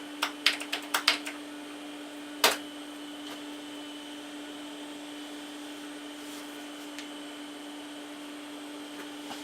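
Quick keystrokes on a computer keyboard in the first second or so and one louder key press about two and a half seconds in, then the steady hum of the running computer's fan and drives as files are copied to the new hard card.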